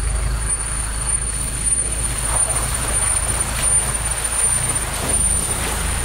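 Four-wheel-drive vehicle's engine running steadily as it drives along a rough dirt track, heard from inside the cab as a low rumble, with a few faint knocks from the bumpy ride. A thin, steady high-pitched whine sits over it.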